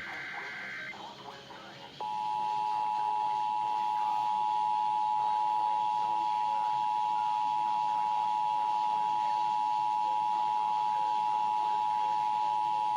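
Emergency Alert System test tones from a weather radio: the last second of a warbling digital data burst, then, about two seconds in, the steady two-tone attention signal, two close pitches sounded together and held without a break.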